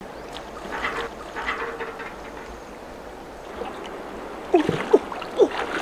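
River water splashing and plopping as a person swims through it: soft splashes at first, then from about three-quarters of the way in, loud short plops about twice a second with each stroke.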